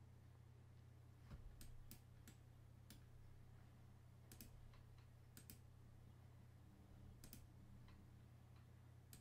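Faint computer mouse clicks, about a dozen, several in quick pairs, over near silence with a low steady hum.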